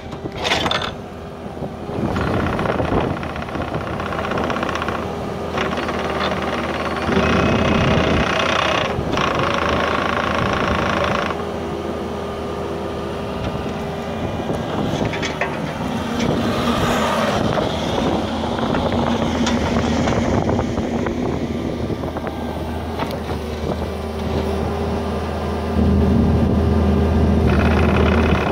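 Diesel engine of a 2012 Kubota KX121-3 mini excavator running steadily, growing louder for the last few seconds.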